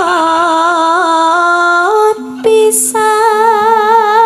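A sinden (Javanese female singer) singing long held notes with a wide vibrato, rising to a higher note about two seconds in. A lower held tone joins about halfway through.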